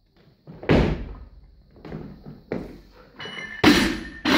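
A loaded barbell with bumper plates during a jerk and its lowering. A heavy thud comes about a second in, then a few lighter knocks and plate rattles. Near the end there are two loud thuds with metallic ringing as the bar and plates come down onto the floor.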